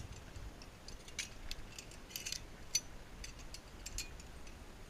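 Light metallic clinks and clicks of zip-line hardware, carabiners and pulley being handled, a dozen or so irregular taps with a sharper clink at the end.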